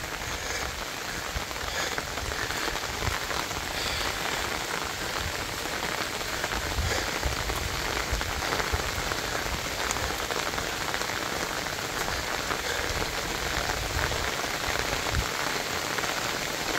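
Steady rain falling: an even hiss that keeps up without a break.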